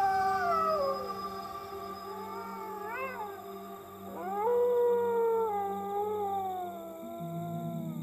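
An animal howling: a long howl sliding slowly down in pitch, a short rising-and-falling call about three seconds in, then a second long howl from about four and a half seconds that also sinks slowly, over a steady low hum.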